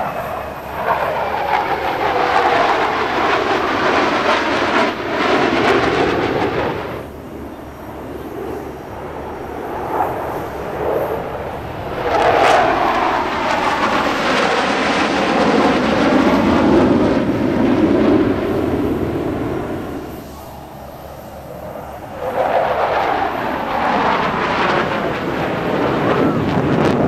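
Formation of twin-engine Sukhoi Flanker jet fighters flying by, their jet noise swelling and fading three times, with the pitch sweeping during each pass.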